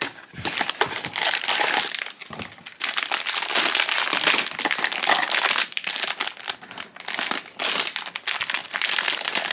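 Silver foil blind-box bag crinkling and crackling in the hands as it is pulled from its cardboard box and opened, in irregular stretches with short pauses.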